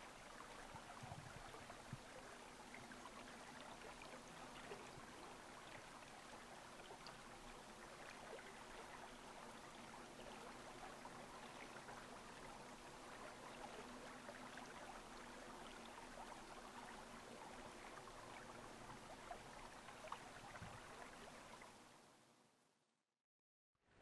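Faint ambience of a distant stream running, with light rustling of leaves, fading out to silence near the end.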